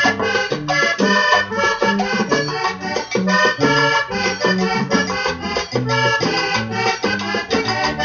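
Instrumental passage of Latin American dance music, led by accordion over a bouncing bass line, with shaker percussion. No singing.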